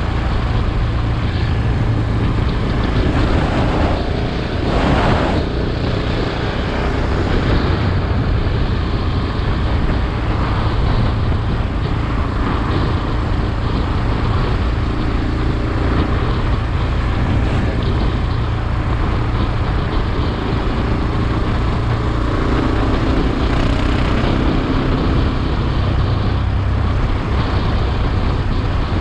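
KTM 690's single-cylinder engine running steadily as the motorcycle is ridden, with a brief louder swell about five seconds in.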